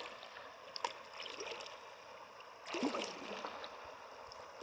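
Kayak paddle dipping and splashing in shallow river water, with the river running over the shallows; the loudest splash comes about three seconds in.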